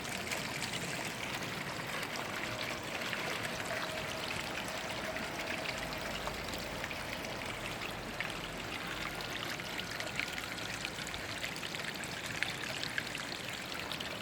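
Pond waterfall running: a steady rush and splash of falling water.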